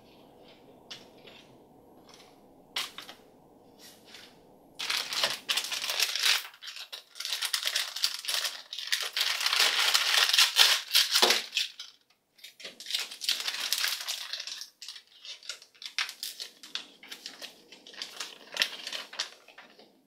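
A plastic blind bag crinkling as hands tear it open and handle it, starting about five seconds in after a few faint clicks.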